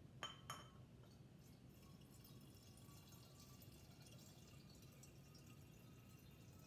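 Water poured from a glass measuring cup into an amber glass bottle: a faint trickle with a faint tone that rises slowly as it goes. Two light clicks just at the start.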